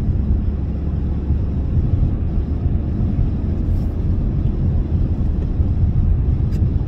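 Cabin noise of a Toyota GR Corolla cruising steadily: an even, low rumble from its turbocharged three-cylinder engine and the tyres on the road, heard from inside the car.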